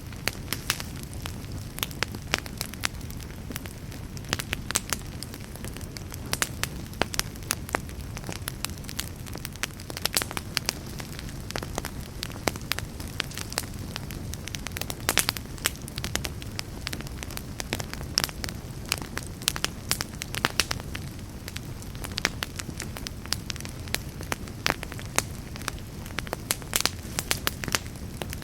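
Fireplace fire crackling: many sharp, irregular pops and snaps over a steady low rumble of flames.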